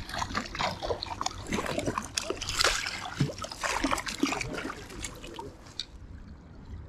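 A small hooked brown trout splashing at the water's surface as it is landed: a run of irregular splashes and drips, busiest through the middle and thinning out in the last couple of seconds.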